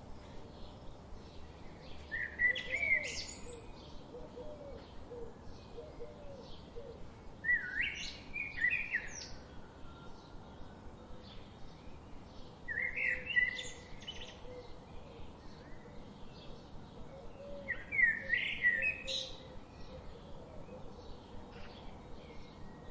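A songbird singing a short phrase four times, about every five seconds, over faint quick chirps that repeat about twice a second.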